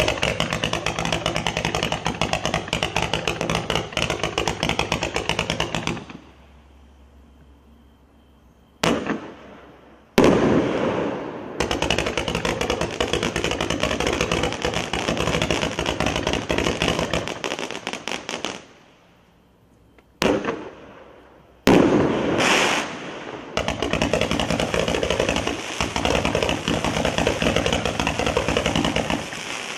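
Hot Shot 'Custer's Last Stand' 177-shot fireworks cake firing rapid-fire volleys of shots. Three long runs of dense, fast reports are separated by gaps of a few seconds, and single louder bangs fall within those gaps.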